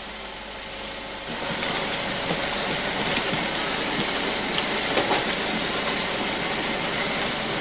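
Mushroom-washing machine in a cannery running: a steady rush of water with scattered knocks of mushrooms tumbling into the tank. It grows louder about a second and a half in.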